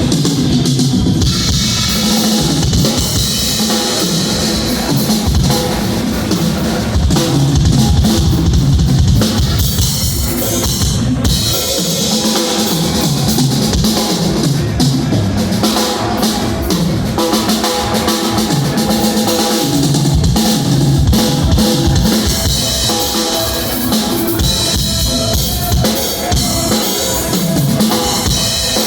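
Drum kit played continuously in a steady groove, with kick drum, snare and rimshots.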